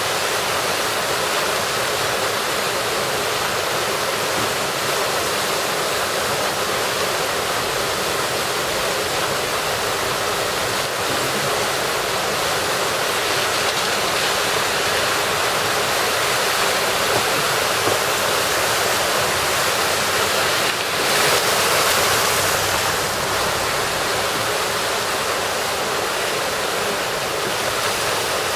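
Storm drain overflowing into a fountain, muddy water gushing out and rushing across a flooded street in a steady loud rush; the drain cannot take the volume of rainwater. The rush swells louder for a couple of seconds about three quarters of the way through.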